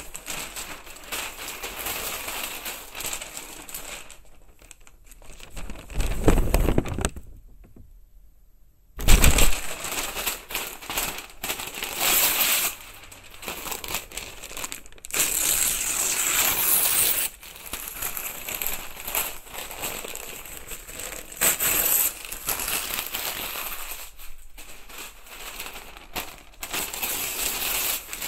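Close-up, irregular crinkling and crackling noises in a binaural recording, stopping for about a second and a half around eight seconds in, then starting again loudly.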